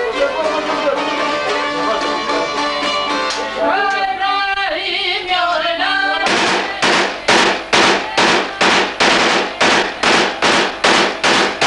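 Music with singing, then from about six seconds in a rifle fired out of a window in a rapid, steady string of single shots, about three a second.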